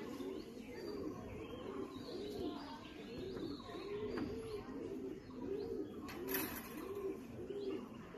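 Domestic pigeons cooing over and over, the low arching coos following each other about twice a second and overlapping, with a short burst of noise about six seconds in.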